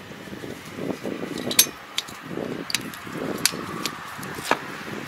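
Metal parts and tools being handled on a rotary tiller's gearbox: about half a dozen sharp, irregularly spaced metallic clicks and knocks over soft handling noise.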